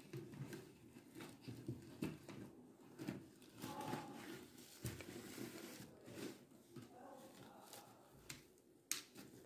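Faint handling noise of plastic beads and fishing line being worked by hand: scattered small clicks and rustles, with one sharper click near the end.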